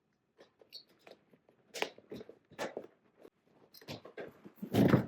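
Leather seat cover being worked onto a car seat cushion, with rustling and a run of sharp snaps as its edge fasteners are pushed back into place. The loudest knock comes near the end.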